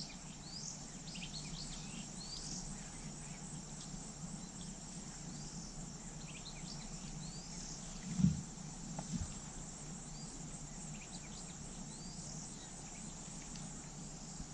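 Insects droning steadily at a high pitch, with scattered short bird chirps over it. A single soft low thump a little past halfway.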